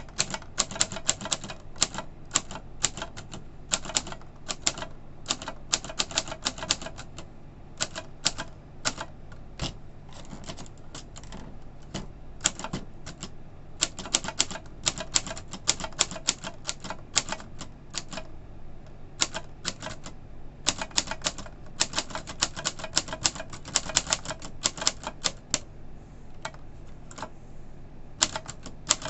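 Underwood 18 manual typewriter being typed on: sharp key strikes in quick uneven runs, several a second, with short pauses between runs.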